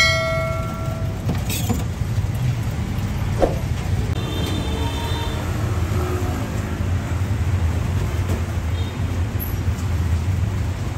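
Steady low rumble of road traffic passing a street stall. Right at the start comes a short ringing chime, the sound effect of an on-screen subscribe button.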